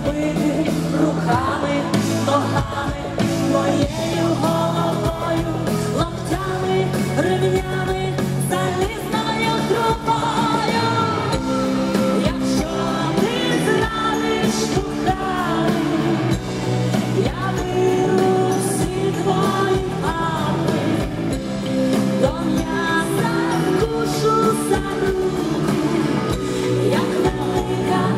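Live band playing a pop-rock song with lead singing, loud and steady throughout.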